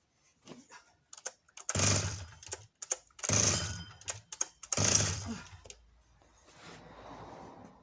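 Husqvarna E70 chainsaw's recoil starter cord pulled three times, about a second and a half apart, the engine turning over on compression without catching. A few light clicks of handling come before the first pull.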